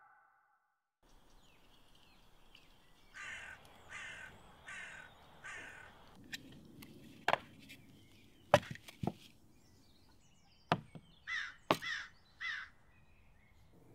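A crow cawing, four caws in a row, then three more a few seconds later, with several sharp knocks in between.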